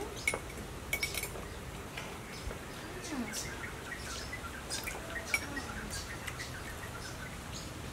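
Metal spoons clicking and clinking against ceramic bowls now and then as people eat.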